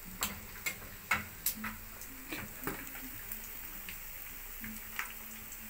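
Hot oil in a frying pan ticking and popping now and then over a faint steady hiss, with a few sharp pops in the first three seconds and one more about five seconds in.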